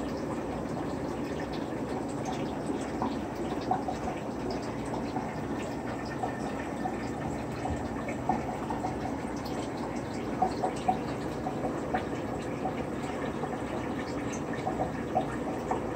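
Aquarium water bubbling and trickling steadily, with small drip-like plinks scattered throughout.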